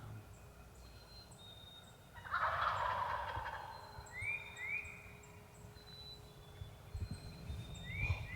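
Wild turkey tom gobbling once about two seconds in, a loud rattling call lasting about a second. Short rising chirps of another bird follow a few times.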